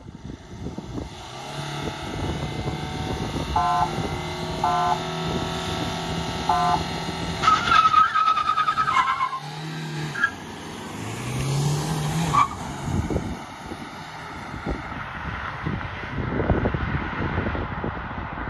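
Three short car-horn toots as the start signal, over diesel engines held at steady revs; then the manual diesel Hyundai Creta and Maruti Brezza launch from standstill, with a tyre squeal about seven and a half seconds in and an engine revving up around eleven to twelve seconds in.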